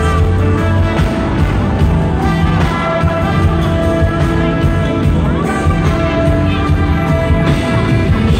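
Live R&B band music, loud and continuous, with long held notes over a heavy bass line, recorded on a phone in the arena crowd.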